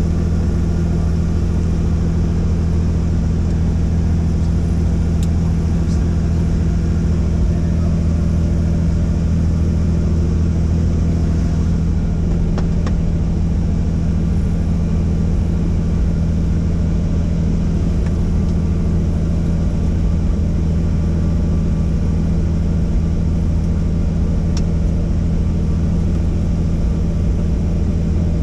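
Helicopter's engine and rotor running steadily: a constant low, humming drone, with a few faint ticks.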